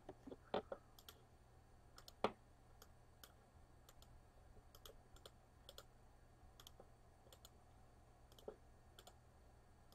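Faint, irregular clicks of a computer mouse and keyboard against near silence, the sharpest a little over two seconds in.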